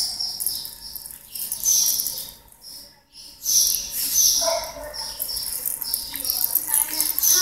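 Small birds chirping and twittering over and over in short, high-pitched notes, with a brief lull about three seconds in.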